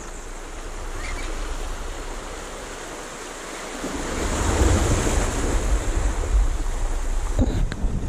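Sea waves washing and breaking against shoreline rocks, swelling louder about halfway through, with wind buffeting the microphone.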